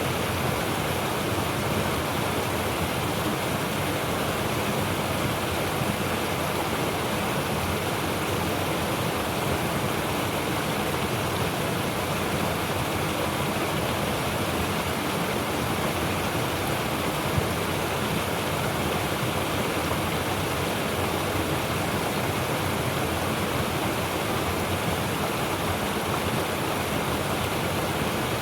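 Mountain stream rushing over rocks: a dense, steady roar of water with a deep low rumble underneath.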